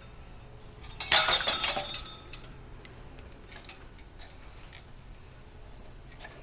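A sudden crash as parts of an old ceiling fan are smashed, a second-long clattering break about a second in, followed by a few light clinks.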